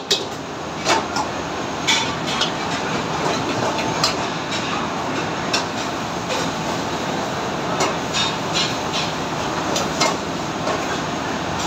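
Steady roar of a commercial kitchen's gas range and extractor hood, with sharp metal clanks of ladles and spoons against steel pots and pans every second or so at irregular intervals.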